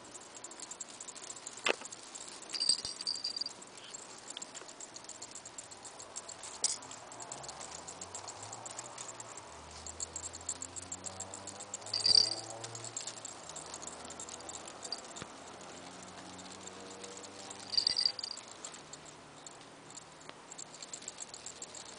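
Persian kittens playing with cat toys: a scatter of small taps, ticks and clicks from paws and toys, with three louder short rattles, one near the start, one about halfway and one late on.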